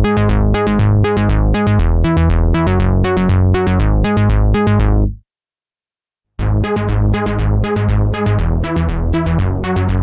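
Tone2 Saurus 3 software synthesizer playing an arpeggiator preset: a fast, even run of short notes, each dying away, over a strong bass. It stops about halfway, leaves about a second of silence, then starts again.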